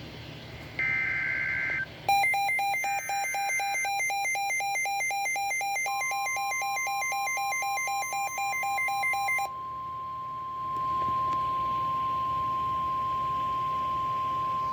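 Emergency Alert System alert tones: two short screeching digital header bursts about a second each, then a fast pulsing electronic beeping for about seven seconds. From about six seconds in, a single steady high warning tone joins the beeping and holds on alone after it stops.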